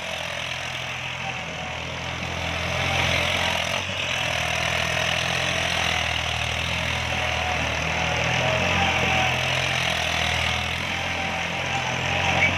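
New Holland 3600-2 tractor's three-cylinder diesel engine running steadily under load, driving a rear-mounted rotavator whose blades churn through the soil.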